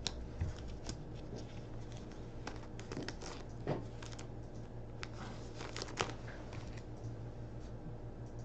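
Hockey trading cards being handled: soft crinkling and rustling with scattered light clicks and ticks, the sharpest about 4 and 6 seconds in.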